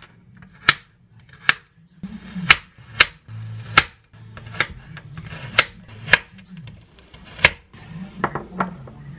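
Kitchen knife chopping half-thawed frozen peach slices into cubes on a wooden cutting board: about ten sharp, irregular chops, the blade knocking the board.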